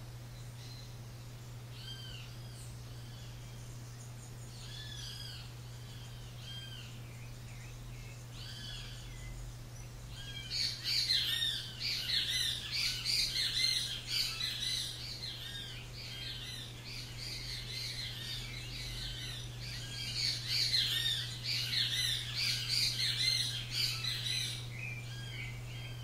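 Birds chirping. For the first ten seconds there are a few scattered short arched calls. About ten seconds in, a dense chorus of many overlapping chirps starts, then thins out near the end. A steady low hum runs underneath.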